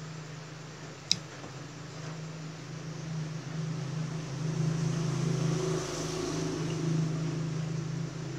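A steady low hum, with one sharp click about a second in. A motor vehicle's rushing noise swells through the middle and fades again, like a vehicle going by.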